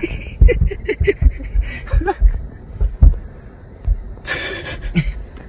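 Stifled laughter in short, breathy bursts, with low thumps underneath and a longer breathy rush near the end.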